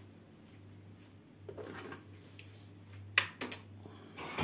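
A few light clicks and knocks of objects being handled on a kitchen counter, the sharpest a little after three seconds in, over a low steady hum.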